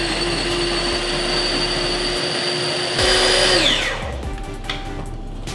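Small electric food processor running steadily as it purées thick avocado crema, growing louder about three seconds in, then its motor winding down with a falling whine when it is switched off. Faint background music is left after it stops.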